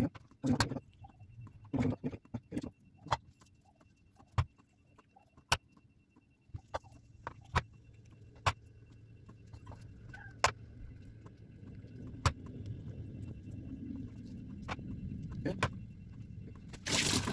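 Handling sounds of hands folding wonton wrappers on a wooden cutting board: scattered light taps, clicks and short rustles, with a louder rustle near the end. A low steady hum comes in about a third of the way through.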